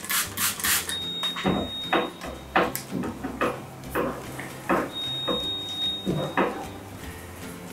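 Soft cleaning cloth wiping the glass touchscreen of a Lely Astronaut A5 milking robot: a run of rubbing strokes, several of them squeaking with a falling pitch.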